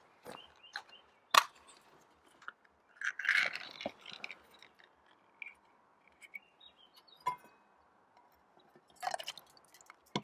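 Pull-tab lid of a Campbell's Chunky soup can popping its seal with one sharp click, then the thin metal lid peeled back with a short tearing scrape. A few lighter clicks follow as the opened can is handled.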